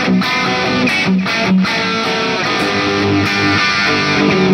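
Electric guitar playing a melodic lead line through a multi-effects pedalboard with delay, a string of single notes held and changing pitch.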